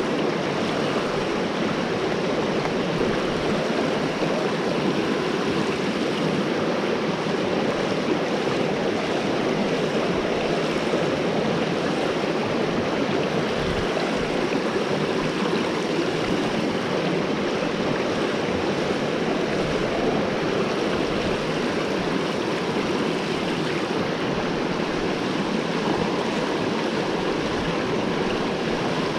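Mountain headwater stream rushing over rocks: a steady, unbroken rush of flowing water.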